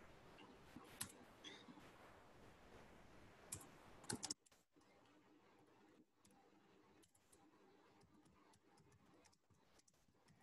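Faint computer keyboard typing: scattered key clicks, with a quick cluster of louder clicks about four seconds in, after which the background hiss drops.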